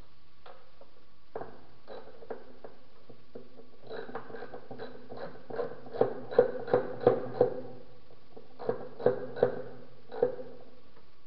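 Sharp metallic clicks and clinks of a hand tool on the valve-cover bolts in an engine bay, as the cover is tightened down after a gasket change. They come in two clusters of about three clicks a second, each with a short ring, the first loudest about two-thirds of the way through.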